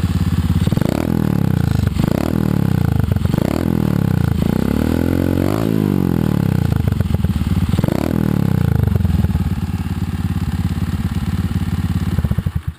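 Honda Monkey minibike's small single-cylinder four-stroke engine running and being revved in about five swells, one held longer than the rest, then cut off abruptly near the end.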